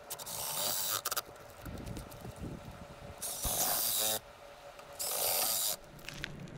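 Cordless drill with a 5/16 socket driving small screws into the side of a roof-mount base, in three short runs of about a second each.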